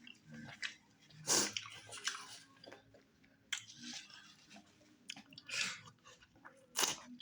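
A person chewing a mouthful of okra stew with tripe and fufu, with wet mouth noises coming in irregular bursts; the louder ones fall about a second and a half in and near the end.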